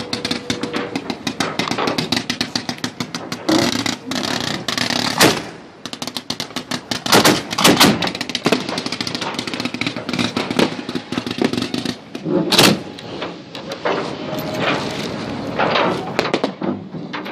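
Fireworks going off close by: a dense run of rapid crackling and popping, with several louder bangs about five seconds in, twice around seven to eight seconds, and once more near twelve and a half seconds.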